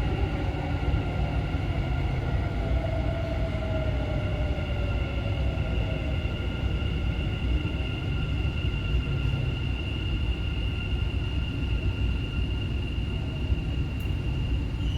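Dubai Metro train heard from inside the carriage: a steady rolling rumble with a constant high whine, and a motor whine falling in pitch a few seconds in as the train slows.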